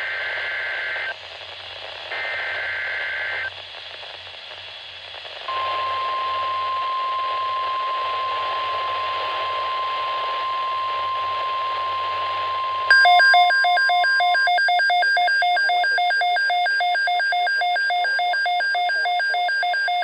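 NOAA Weather Radio emergency alert: three one-second bursts of SAME header data, a warbling two-tone squeal, followed by the steady 1050 Hz weather radio alarm tone, which announces a severe thunderstorm watch. About thirteen seconds in, a louder electronic alarm starts beeping rapidly over it and keeps going after the steady tone stops.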